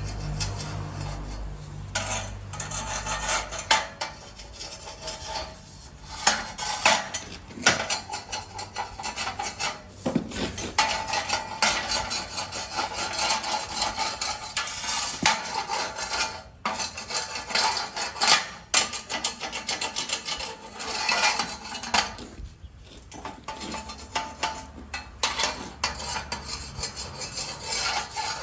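Metal hand tools for civil work being handled, scraping and clinking against each other and hard surfaces: an irregular scraping with frequent sharp knocks.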